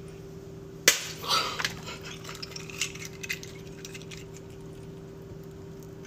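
A raw egg's shell cracking once, sharply, about a second in, then faint crackles as the shell is pulled apart.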